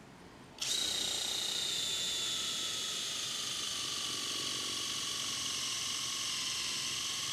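Kingblue KM18QE cordless drill boring a 15 mm wood bit into a log of dense jackfruit wood: the motor starts about half a second in and runs with a steady high whine that sags slowly in pitch under the load. The motor, heat-damaged and smoke-scorched, still drives the bit strongly.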